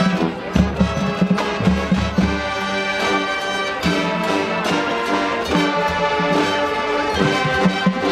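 High school marching band playing its field show: brass holding and moving through chords over regular drum and percussion hits.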